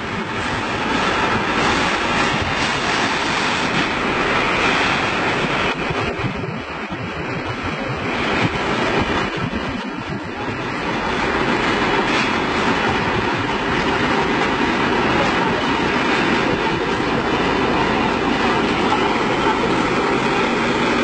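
Fire truck engine and water pump running steadily under load, a loud, even rushing drone.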